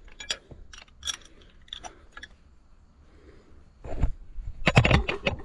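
Scattered metallic clicks and knocks of a combination wrench working the flange bolts on an Allis-Chalmers D17's belt pulley unit, with a short lull and then a louder cluster of knocks near the end.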